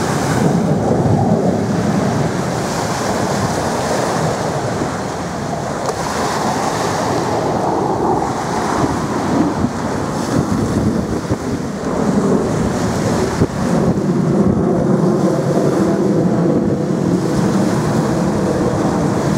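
Steady rushing roar of the Black Knights' F-16 fighter jets flying overhead, mixed with wind on the microphone; a faint engine tone comes through in the second half.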